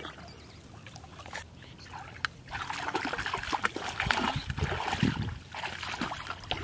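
Shallow water sloshing and splashing as legs wade through it. It gets louder and busier about two and a half seconds in.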